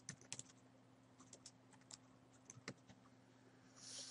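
Faint, irregular keystrokes on a computer keyboard as a line of text is typed, with a short soft hiss near the end.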